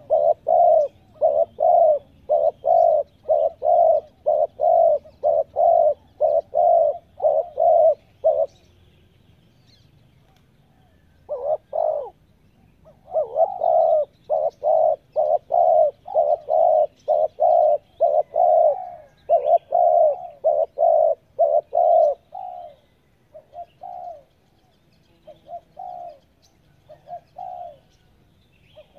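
Spotted dove, the tethered decoy bird, cooing in a fast even series of about two to three coos a second. The series breaks off for a few seconds, resumes just as fast, then slows to scattered single coos near the end.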